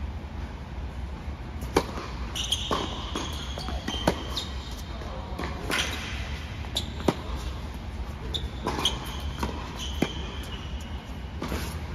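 Tennis rally on an indoor hard court: about eight sharp racket hits and ball bounces, one every second or so, ringing in the hall. Short high squeaks of sneakers on the court come in between.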